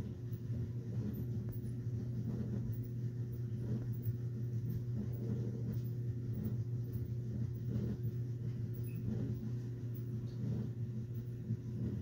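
Steady low hum of room tone with faint indistinct low sounds over it.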